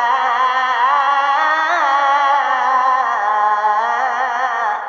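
Male qari's melodic Quran recitation: one long note held on the closing vowel of the word "nasha'", with wavering ornaments, a brief climb, then a step down about three seconds in. It stops near the end and leaves a fading echo.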